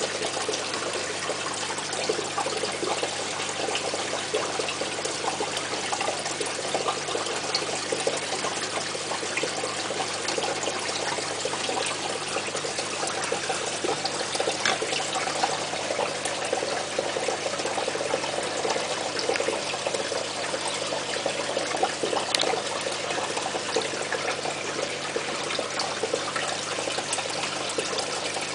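Aquarium water trickling and splashing steadily, the sound of the tank's filter return, over a low steady hum.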